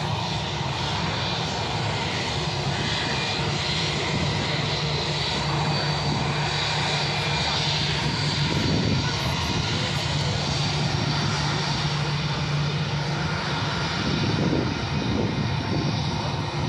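Twin-engine jet airliner taxiing past close by, its engines running steadily at low power: a continuous rumble with a high whine over it.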